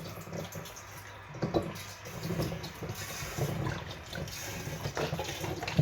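Juice being poured into a fermenting vessel, with a light knock about a second and a half in.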